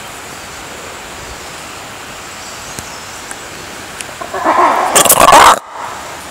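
Black-and-white ruffed lemur giving a very loud, harsh call: a burst of about a second and a half starting about four seconds in and cutting off suddenly, over a steady background hiss.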